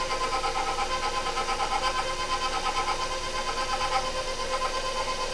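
KitchenAid Professional 600 stand mixer running steadily, its wire whip beating sugar and egg yolks in the steel bowl: a steady motor whine with a quick, even pulse.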